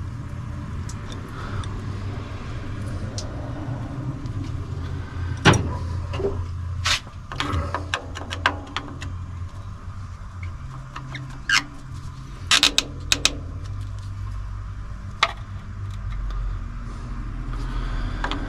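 Scattered sharp clicks and knocks of parts and tools being handled, a cluster of several about two-thirds of the way through, over a low steady rumble.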